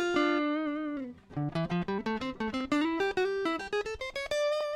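Electric guitar played dry through a Zoom G1X ON multi-effects pedal with its compressor set to slow attack, in a single-note melodic line. A held note wavers with vibrato near the start, then a quick run of plucked notes climbs to a long held note near the end.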